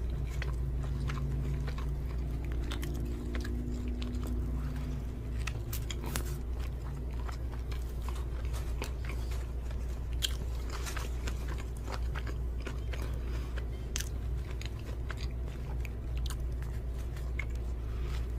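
Close-miked chewing and biting of a hamburger: many small wet mouth clicks, over a steady low hum.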